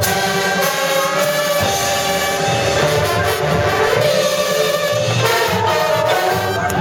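High school marching band playing: brass sustaining chords over drumline percussion.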